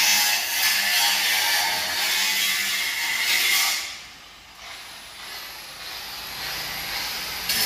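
Angle grinder grinding on sheet steel, a loud, steady hiss that stops about four seconds in, leaving a quieter stretch with a thin, high whine.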